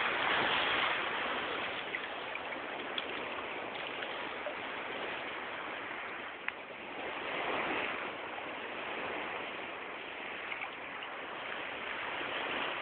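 Sea water washing and lapping close to the microphone in shallow surf, a steady rush that swells near the start and again about halfway through, with a few faint ticks.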